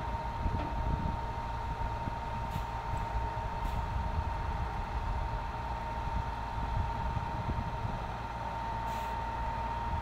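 Diesel engine of a tracked sugarcane harvester running steadily, a low rumble with a steady high whine over it.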